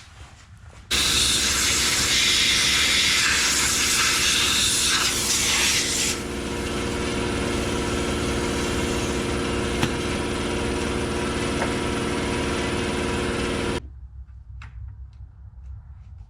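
Two-stroke chainsaw running at high revs, harsher and louder for the first five seconds as it works, then running on steadily. It starts and stops abruptly about a second in and near the end, with a few faint clicks after it.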